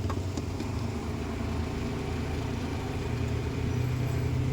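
Steady low engine-like hum, as of a vehicle running, growing a little stronger near the end, over a faint even hiss of rain.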